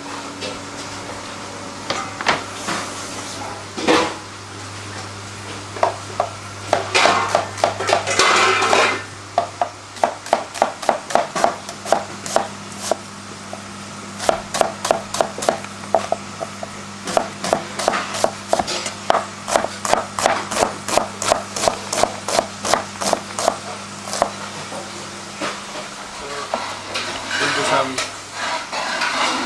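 Kitchen knife chopping a red onion on a plastic cutting board: quick, even chops at about four a second, in long runs with short pauses. A steady low hum runs underneath.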